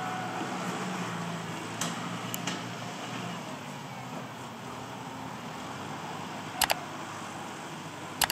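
Kubota MU5702 tractor's diesel engine running steadily as the tractor works loose dirt, with a few sharp clicks, including a quick double click about two-thirds of the way through.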